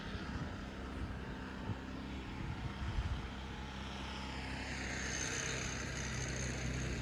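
A distant engine running with a steady low drone that grows slightly louder, a thin high whine joining it in the second half, and a few faint knocks.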